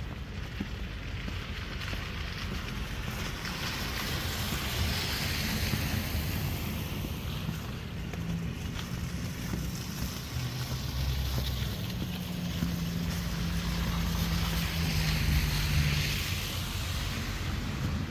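Wind rumbling on the microphone over steady road traffic, with two vehicles passing, their hiss swelling and fading about five seconds in and again near fifteen seconds, the second with a low engine hum.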